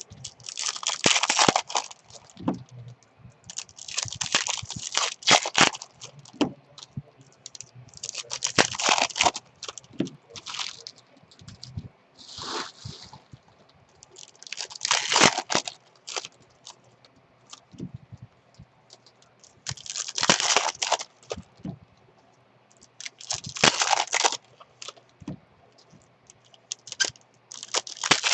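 Foil baseball card pack wrappers crinkling and tearing as packs are ripped open and handled: about eight bursts of crinkling, each a second or two long, a few seconds apart.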